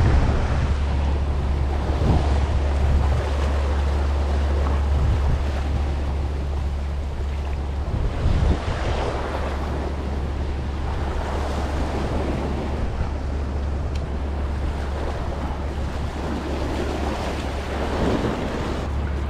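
Sea swell surging and washing against a rocky shoreline, the wash swelling up every few seconds, with wind buffeting the microphone as a steady low rumble underneath.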